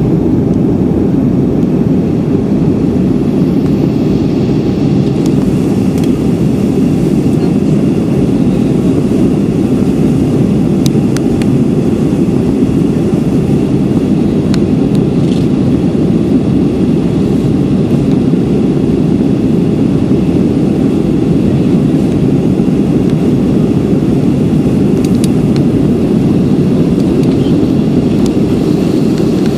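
Steady low roar of a jet airliner's engines and rushing air, heard from inside the passenger cabin on final approach.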